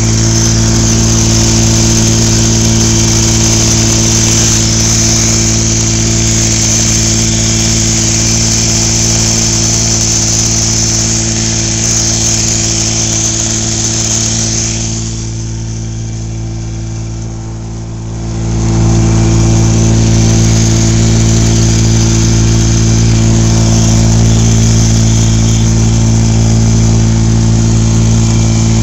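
Homemade wooden boat's engine running steadily under way, with a steady rushing hiss over it. About halfway through, the hiss fades and the engine quietens for a few seconds, then both come back.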